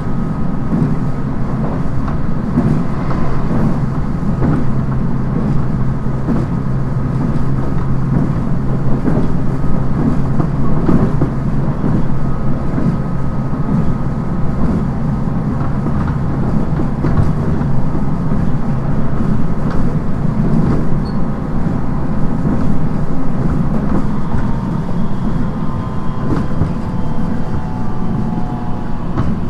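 Running noise inside a JR 719 series electric train, the unit singled out for its abnormal noise, cruising steadily: a heavy low rumble with a thin steady whine on top.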